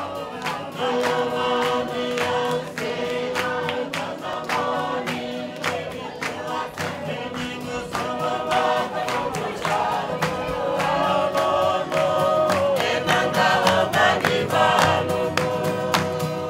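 A group of voices singing a song in harmony over a steady, strummed acoustic-guitar rhythm.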